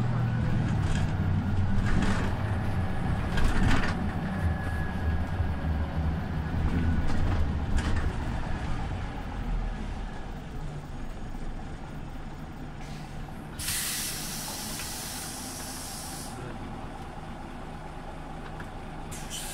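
Scania OmniLink city bus's engine running, quieting down about ten seconds in to a steady low hum as the bus slows and idles. About fourteen seconds in, compressed air hisses out for nearly three seconds, from the bus's air brakes or pneumatic doors.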